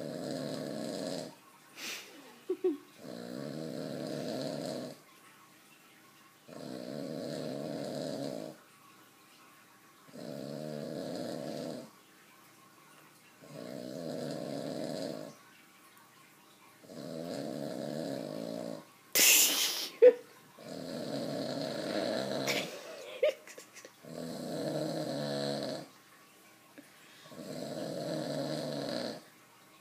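A person snoring in sleep: a snore about two seconds long roughly every three and a half seconds, about nine in all. About two-thirds of the way through comes a brief sharp noise, louder than the snores, with a few small clicks around it.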